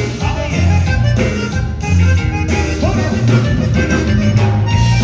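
Live conjunto band playing Tejano music: button accordion over electric bass, guitar and drums.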